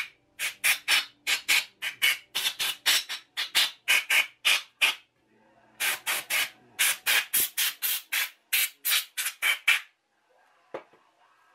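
Can of compressed-air duster fired in quick short blasts through its straw, about three a second, in two runs with a short pause in the middle, blowing grinding dust off an aluminium piston.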